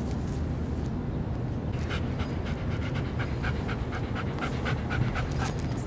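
A long-haired dachshund panting quickly, about four short breaths a second, starting about two seconds in, over a steady low rumble.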